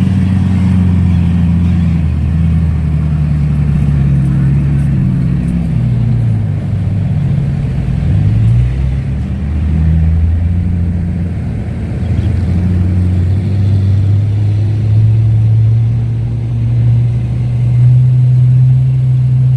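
Engine sound of a truck or excavator running, its pitch stepping up and down as it revs, then holding steady from about halfway through.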